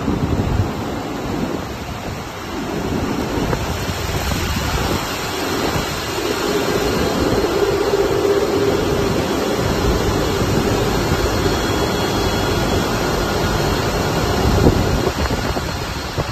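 Steady loud roar of the cooling fans of a bitcoin mining farm: large wall-mounted exhaust fans and the fans of rows of ASIC mining rigs. A steady hum joins the roar from about six seconds in and fades near the end.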